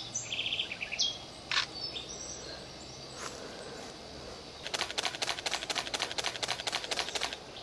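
Short, high bird chirps and a quick run of squeaky notes in the first two seconds. From about halfway, a rapid, even pulsed trill of roughly eight pulses a second runs for nearly three seconds.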